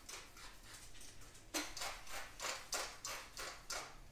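Hand pepper mill being twisted over raw chicken breasts: a run of short gritty grinding strokes, about three a second, growing stronger from about one and a half seconds in.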